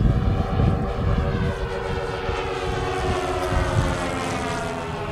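Radio-controlled twin-engine scale model of a Nakajima J1N Gekko flying overhead, its propeller engines droning steadily with the pitch falling slowly as it passes.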